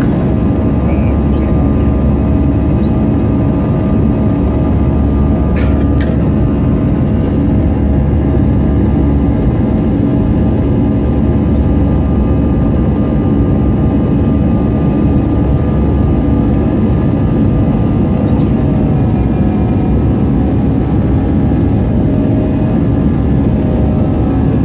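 Steady in-flight cabin noise of an Airbus A320 with CFM56 engines: the engines' hum and the rush of air past the fuselage, with a few steady tones running through it. A couple of faint clicks come about six seconds in.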